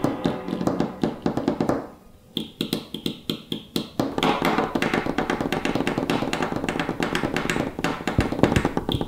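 An Apple Pencil tapped on a wooden tabletop in quick, drum-like rhythms. The tapping stops briefly about two seconds in, then picks up again, denser and faster.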